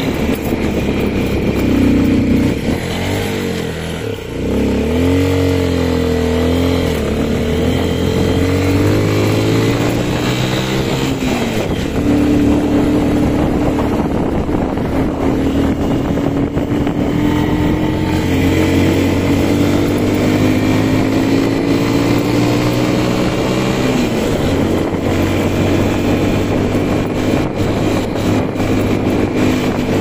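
Beker Cross 150cc motorcycle's single-cylinder engine running under way, heard from the saddle over a steady hiss. Its pitch dips about four seconds in and climbs back, then rises slowly through long stretches, dipping once more about two-thirds of the way through.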